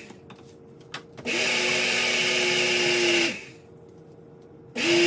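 Instant Pot Ace blender running its preset smoothie program in pulses: the motor winds down, pauses for about a second, runs steadily for about two seconds, winds down and pauses again, then starts up once more near the end.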